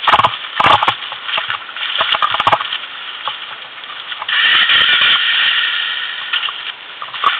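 Kawasaki ATV engine running, with a few knocks and rattles early on from handling near the machine. About four seconds in the engine note comes up sharply and holds steady.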